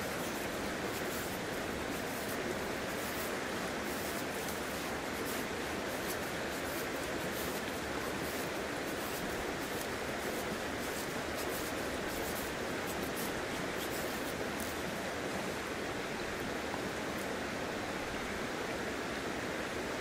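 Steady rushing of a river, with faint, quick repeated scrapes of a knife blade shaving thin curls from a wooden stick to make a feather stick; the scraping stops about three-quarters of the way through.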